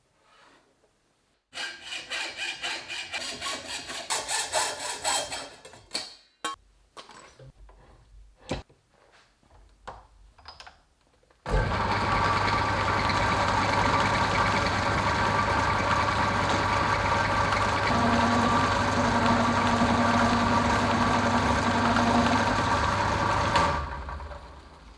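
A hand saw cutting wood in quick, even strokes, about four a second, for around four seconds, then a few knocks and clicks of handling. A workshop power tool's electric motor then starts abruptly and runs steadily with a hum for about twelve seconds before winding down near the end.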